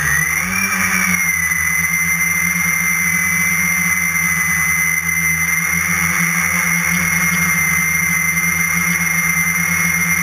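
Walkera QR X350 Pro quadcopter's electric motors and propellers running at close range: a steady whine with a high tone that swells in pitch about a second in as the craft climbs, then holds steady in the hover.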